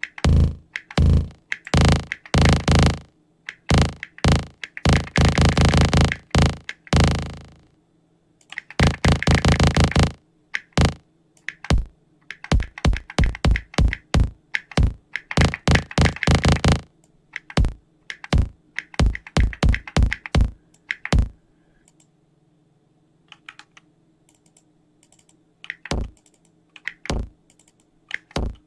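A resampled kick drum played from Ableton's Drum Sampler as a bass sound, triggered over and over in short hits and at times in fast rolls, while its hold and decay are shortened. In the last part the hits thin out, with computer keyboard clicks in between.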